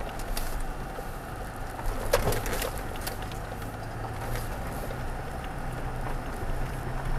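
A 2016 Toyota Tacoma crawling at walking pace over a rough dirt road, heard from inside the cab: a steady low engine hum over tyre and road noise, with a cluster of sharp clicks and knocks about two seconds in.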